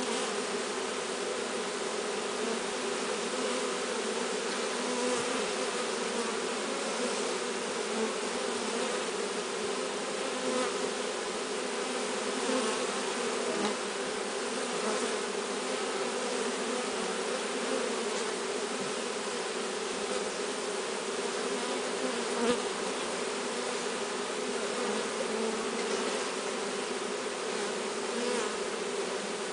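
Steady, dense buzzing of a honeybee swarm in flight around the hive box, many bees at once, with a brief knock about 22 seconds in.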